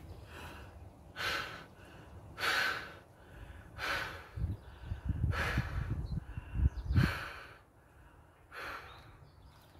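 Mouth-inflating a vinyl inflatable pool: breaths drawn in and puffed into the valve, about seven in a row, roughly one every second or so. Low rustling of the handled vinyl comes through in the middle.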